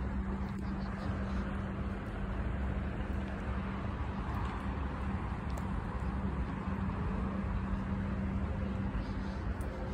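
Steady outdoor background noise: a constant low mechanical hum over an unbroken rumble and hiss.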